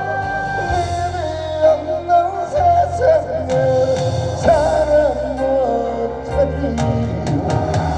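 Trot song music, a lead melody with vibrato over a bass line and scattered drum hits.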